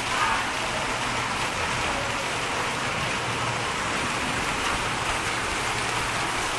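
Hailstorm: hail and rain falling in a steady, even hiss.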